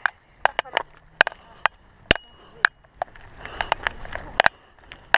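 A mountain bike clattering over a rough dirt trail. It makes a string of sharp, irregular clacks and rattles, about two a second, over a faint rumble of tyres.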